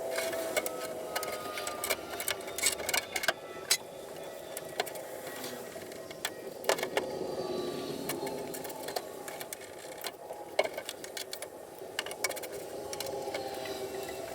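Workshop work noises: irregular clicks and knocks of tools and parts being handled, over a faint wavering whirr.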